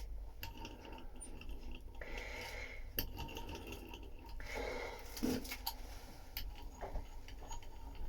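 Quiet handling sounds: scattered light clicks and taps with two short rubbing hisses, about two and four and a half seconds in.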